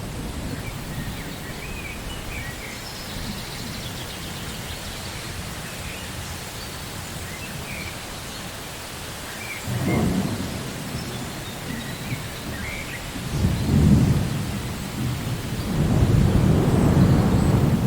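Thunderstorm: steady rain with small birds chirping now and then, and rolls of thunder, one about ten seconds in, another a few seconds later, and a longer, louder rumble near the end.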